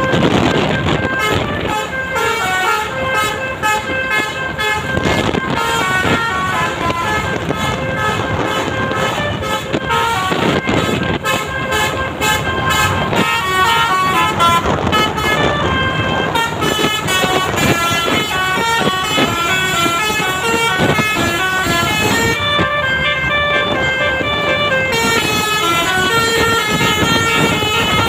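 A bus's basuri 'telolet' horn, a multi-tone electric horn, playing a quick melody of stepping notes without a break.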